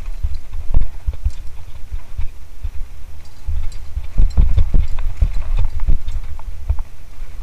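Lapierre Zesty mountain bike riding over rough ground: a heavy low rumble, most likely wind on the microphone, under a run of irregular knocks and rattles from the bike, thickest from about four to six seconds in.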